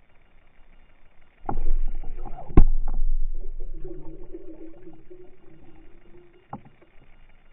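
A pike striking a dead-bait fish just under the surface, heard underwater: a sudden splash about a second and a half in, a sharp knock a second later, then churning water that fades over several seconds as the pike thrashes with the bait, and another short knock near the end. The sound is muffled, with no high end.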